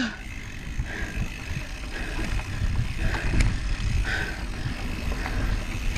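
Mountain bike riding over a dirt singletrack: steady low rumble of tyres and frame over the trail with wind buffeting the camera microphone, and a few faint short squeaks.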